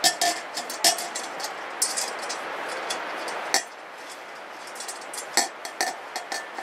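Metal parts of a Weber Smokey Joe kettle grill clinking and tapping together as bolts, washers and grate brackets are handled and fitted, with short metallic ringing after some knocks. A steady hiss stops about three and a half seconds in.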